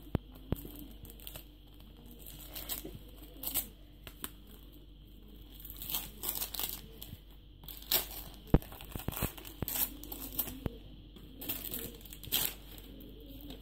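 Gift wrapping paper being picked at and torn off a small flat present, in short, irregular rips and crinkles with sharp crackles between quieter moments.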